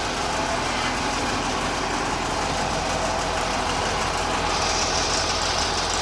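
An engine idling steadily, with a higher hiss coming in about four and a half seconds in.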